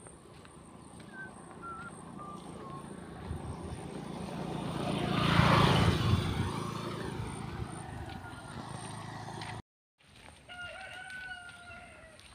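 A rushing noise swells over several seconds, loudest about halfway through, then fades. After a brief dropout near the end, a drawn-out crowing call sounds, with a few faint chirps early on.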